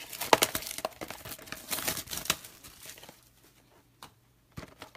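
Plastic shrink wrap being torn and crinkled off a sealed trading-card box, dense crackling for the first couple of seconds, then thinning out, with one last click near the end.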